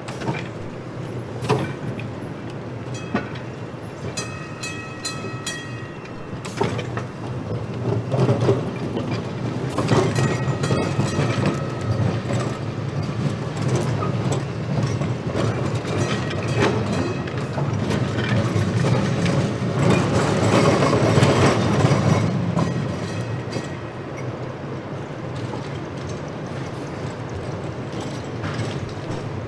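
Streetcar No. 6119 running along the track, its wheels clicking over the rail joints under a steady low rumble. The rumble grows louder as the car comes past, is loudest about 20 seconds in, then eases. A brief high ringing tone sounds about four to six seconds in.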